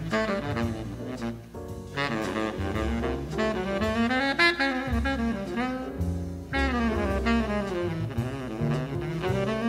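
Jazz recording played back from a vinyl LP: a horn carries the melody over double bass.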